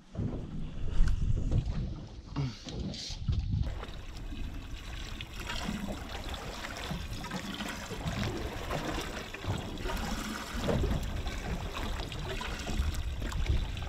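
Water sloshing against the hull of a small boat at sea, with wind on the microphone.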